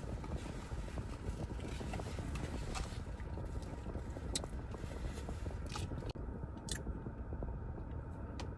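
Mouth sounds of someone eating a burger, biting and chewing, with small scattered clicks, over a steady low rumble.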